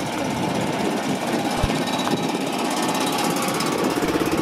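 BMW Isetta bubble car's small single-cylinder engine chugging with a fast, even throb as the car drives slowly past. The throbbing grows stronger near the end.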